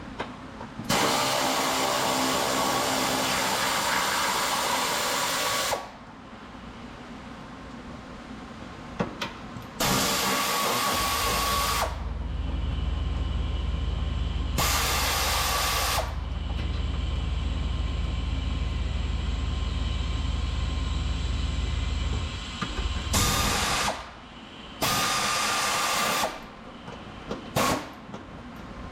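Repeated bursts of hissing, from about a second to five seconds long, each with a faint whistle. A steady low hum comes in partway through and stops about ten seconds later.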